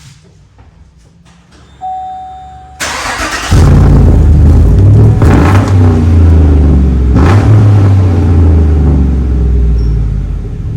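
A 2015 Chevrolet Silverado's V8 cranked and started after a short chime, catching about three seconds in and then running loud, with two brief surges before it eases toward idle. It exhausts through an aftermarket muffler and a newly fitted tailpipe after an exhaust repair.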